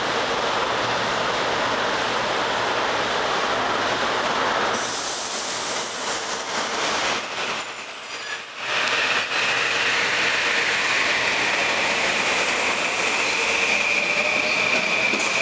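Metro-North M8 electric multiple-unit train rolling along the platform as it pulls out of the station. A steady high squeal sets in about two-thirds of the way through, and a lower whine rises in pitch over the last few seconds as the train picks up speed.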